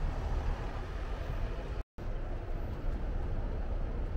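Outdoor traffic ambience: a steady low rumble of road noise, with a brief dropout about two seconds in.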